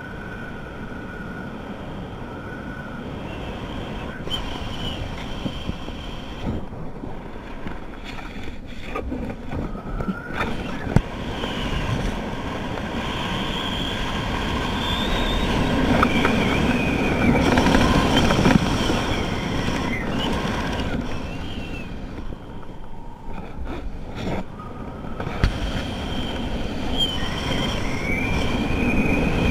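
Wind rushing over a camera's microphone during parachute canopy flight: a steady rush that swells and eases, with a thin whistle that wavers in pitch.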